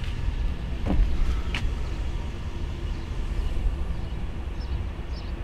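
Steady low rumble of outdoor background noise, with a brief falling squeak about a second in. No hiss of air escaping from the tire is heard: the leak seems to have stopped for now.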